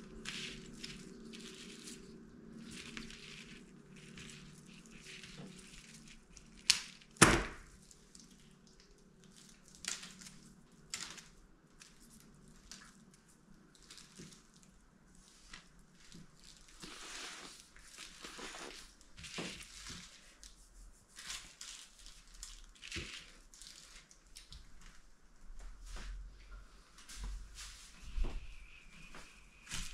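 Irregular handling noises from balloons and craft materials being worked by hand: rustling, rubbing and light taps, with two loud sharp snaps about seven seconds in.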